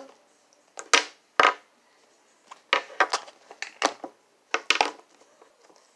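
Makeup bag and cosmetics handled close to the microphone: a string of about ten sharp, irregular clacks and knocks with light rustling between them.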